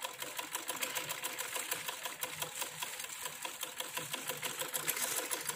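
Hand-operated sewing machine stitching: a rapid, even run of mechanical ticks as the needle works through cloth.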